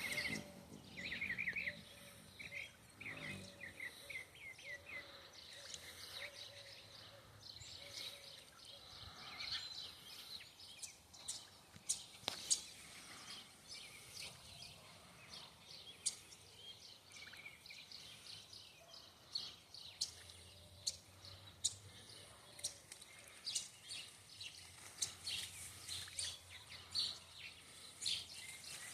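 Small birds chirping and calling over and over, with a quick repeated trill in the first few seconds. A faint steady hum sits under the calls for roughly the first third.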